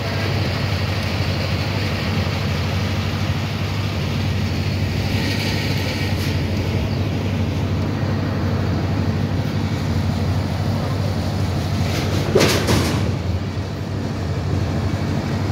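A large engine running steadily with a low, even hum, with a brief louder noise about twelve seconds in.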